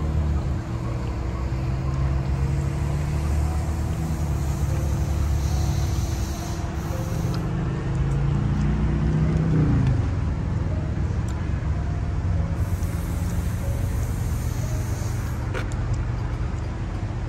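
Car engine running at idle, a low steady rumble, with a brief rising rev about nine seconds in.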